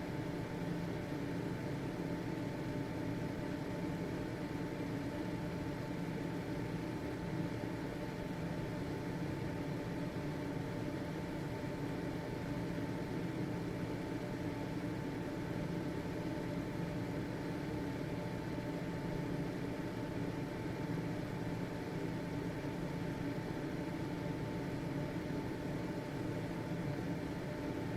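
Household ventilation fan motor running steadily: an even whir of air with a constant hum and a faint steady whine.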